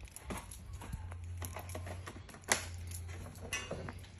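Footsteps crossing grass onto concrete, with scattered small clicks and a sharp knock about two and a half seconds in, over a low steady hum.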